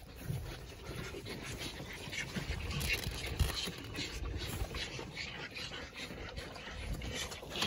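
Calves sucking and slurping milk from the rubber teats of a plastic multi-teat calf milk feeder, in irregular bursts over a low rumble.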